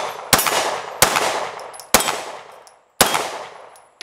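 Glock 19 9mm pistol, mounted in a Recover Tactical P-IX chassis, firing four single shots a little under a second apart. Each crack trails off in a long echo.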